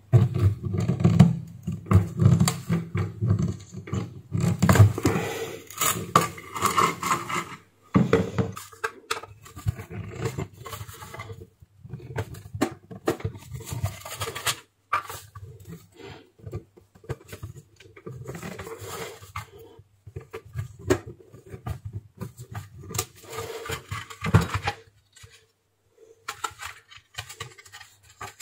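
Screwdriver scraping and grinding in the corroded, stuck screws of a plastic steam iron housing, with clicks and knocks of the plastic shell being handled. The scraping is densest in the first several seconds, then comes in shorter, sparser spells.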